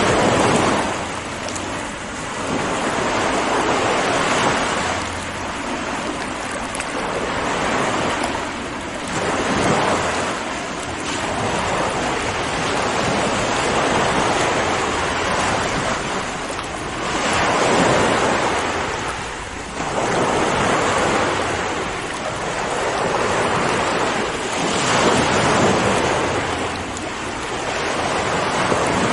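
Ocean waves breaking and washing on the shore, a continuous rush of surf that swells and eases every few seconds.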